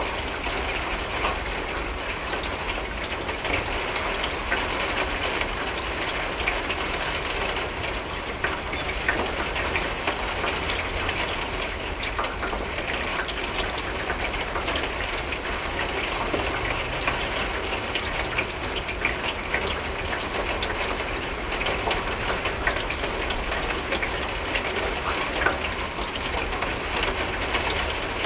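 Steady rain with many small drops tapping on a window pane, over a low steady rumble.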